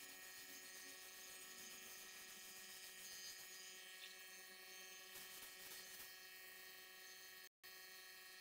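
Near silence: a faint steady electrical hum over low hiss, cut off completely for a moment near the end.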